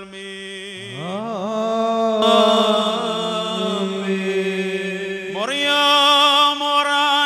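Liturgical chant of a Syriac-rite church service, sung in long held notes that glide from pitch to pitch. A new phrase rises in about a second in, and another near the end.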